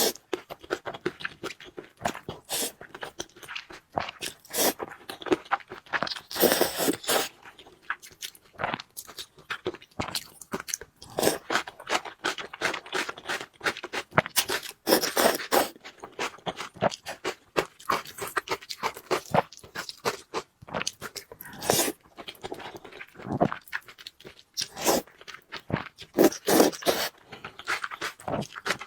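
Close-miked eating sounds: a person crunching and chewing food in quick, irregular clicks, with a few longer, louder stretches.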